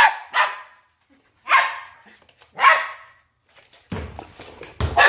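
Corgi puppy barking four times in sharp, high yaps, which the owner takes for anger. From about four seconds in, a scuffling clatter with a few knocks follows.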